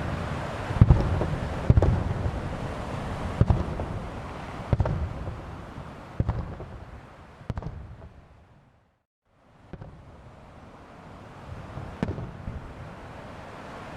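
Fireworks shells bursting in a star-mine display over the sea: a run of sharp booms, each with a rumbling echo, about one every second or so, dying away over the first half. After the sound cuts out briefly, a steady wind and surf noise follows with one more boom.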